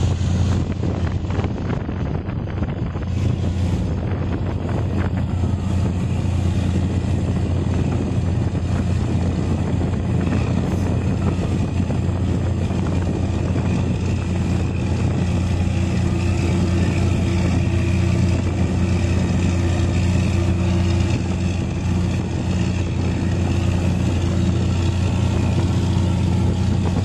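Steady, deep drone of marine diesel engines with an even hum, as a small tug tows the ship toward its berth.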